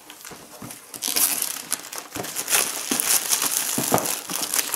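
Clear plastic shrink-wrap being pulled off a cardboard box and crinkling, with a few light knocks from the box being handled.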